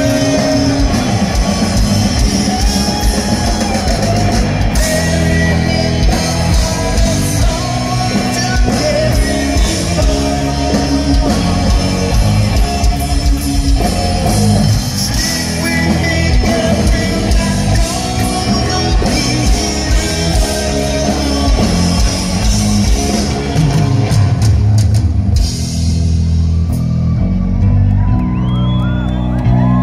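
Live rock band playing loud through a stadium PA: singing, electric guitar, bass guitar and drum kit. About 25 seconds in the cymbals drop out, leaving bass, guitar and voice.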